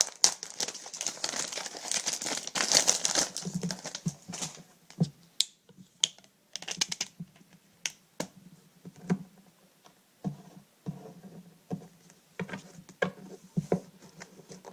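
Crinkling of the plastic wrapping around a pack of Pokemon cards being handled for about the first four seconds, then scattered light clicks and taps of the cards being handled and set down.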